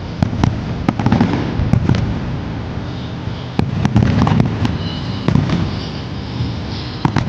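Fireworks display: aerial shells bursting in a string of sharp bangs, several a second, over a continuous low rumble.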